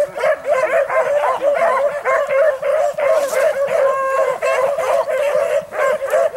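A pack of rabbit dogs baying without pause as they run a rabbit's trail, several voices overlapping in quick, rising-and-falling cries, with one longer drawn-out howl about four seconds in.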